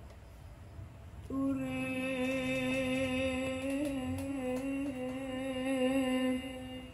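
A sholawat song playing through a small wooden two-way speaker box, fed by a modified loudspeaker management processor: after about a second of quiet, a singer holds one long, slightly wavering note that stops shortly before the end.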